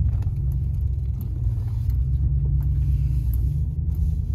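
Steady low rumble of a vehicle's engine and road noise, heard from inside the cab while it drives slowly, with a few faint clicks.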